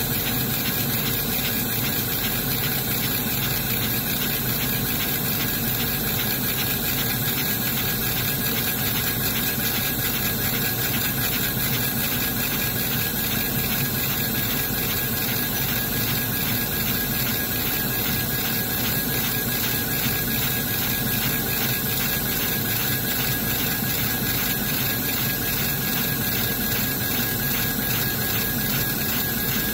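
Laser engraver raster-engraving a photo into plywood, its head shuttling rapidly back and forth: a steady mechanical whir and hiss from the machine, with a faint steady high tone over it.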